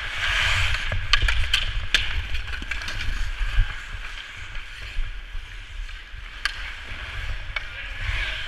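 Ice skate blades scraping and carving across rink ice, with a low rumble of wind on the microphone as the wearer skates. Sharp clacks of hockey sticks and puck come several times in the first two seconds and once or twice later.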